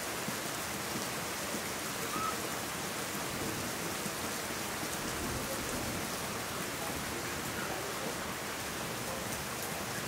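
Steady monsoon rain falling in an even, unbroken patter.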